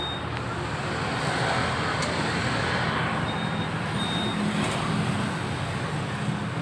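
Honda Scoopy scooter's single-cylinder engine idling steadily, with a few light clicks. The CVT is running without the growl ('ngorok') the owner complained of, here with the aluminium CVT cover held by a single bolt.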